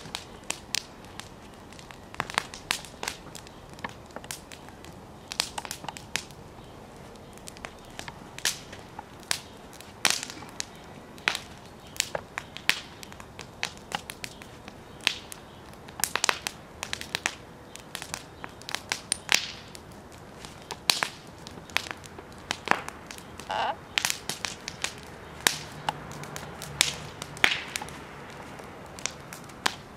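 Wood fire in an open fire pit crackling, with sharp irregular snaps and pops.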